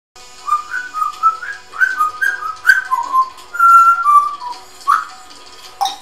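African grey parrot whistling a tune: a string of short, clear notes stepping up and down, several sliding up at their start, with one longer held note about halfway through.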